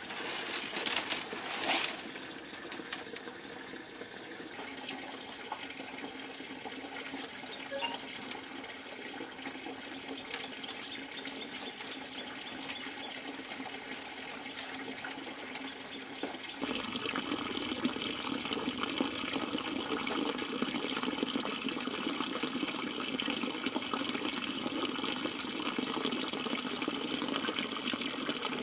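Water running steadily, with a brief louder rush near the start; about 17 seconds in it suddenly becomes louder and fuller.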